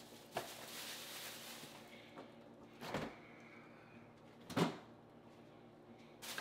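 Refrigerator door opened and things handled inside it: a few separate knocks and thuds, the loudest a little past halfway, over a low steady hum.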